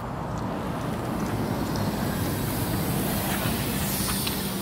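KAMAZ-6282 electric bus pulling in close to a stop, with tyre and running noise. A steady low hum sets in about halfway, and a hiss of air builds near the end.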